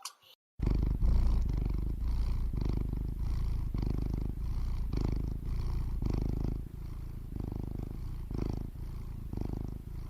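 Domestic cat purring: a steady low rumble that swells and eases with each breath, starting about half a second in after a brief silence.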